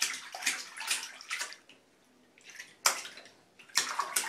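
A baby slapping bubbly bath water in a plastic infant tub with his hand: a run of irregular splashes, a short lull about halfway, one sharp splash, then quicker splashing near the end.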